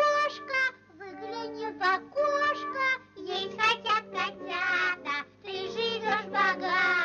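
Soundtrack song: a high, child-like voice sings short phrases over orchestral accompaniment, with clipped, detached notes at first and longer, wavering notes in the second half.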